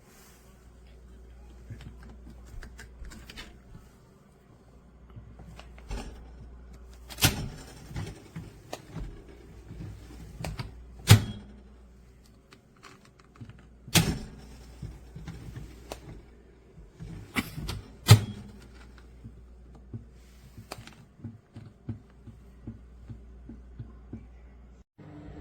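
Handling clunks and clicks, with a few sharp knocks standing out, over a steady low hum.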